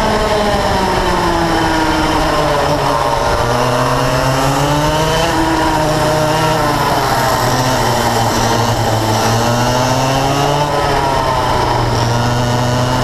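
Yamaha KT100 two-stroke kart engine heard from on board at racing speed, its pitch dropping as it slows into corners and climbing again under acceleration, three times over, with steady wind rush.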